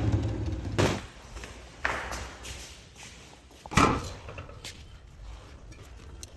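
A Royal Enfield Bullet motorcycle engine running through a Mahindra tractor silencer stops under a second in. Then come a few separate knocks and clunks, the loudest a little past the middle.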